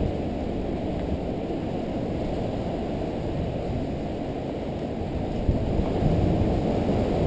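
Steady low rumble of wind buffeting the GoPro Hero 2's microphone, with no distinct knocks or footsteps standing out.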